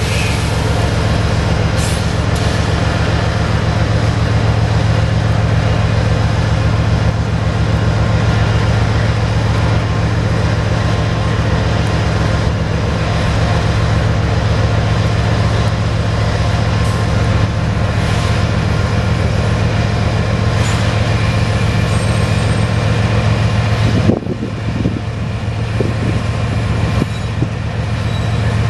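CSX GE AC4400CW diesel freight locomotive running with a loud, steady deep throb. The sound drops a little about three-quarters of the way through.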